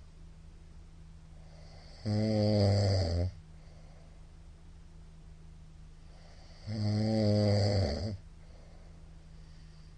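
A middle-aged man snoring loudly in his sleep: two long snores about four and a half seconds apart, each lasting over a second, with a low steady hum between them.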